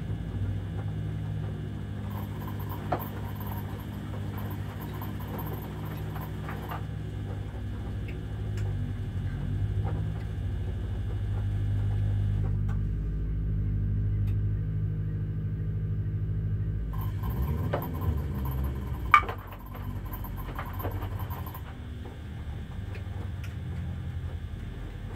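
Two Beko front-loading washing machines tumbling their loads on a delicate wash: drum motors humming steadily while water and suds slosh in the drums, with a few light knocks and one sharp click about three-quarters of the way through.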